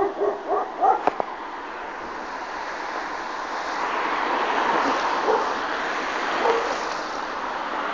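A dog barks in a quick run of short barks in the first second. After that a broad, steady rushing noise swells over a few seconds and slowly eases off.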